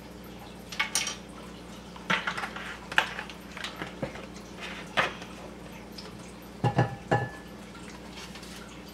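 Kitchen handling clatter: a few short knocks and taps as a bottle, a bowl and a utensil are picked up and set down on the counter, the loudest pair near the end, over a steady low hum.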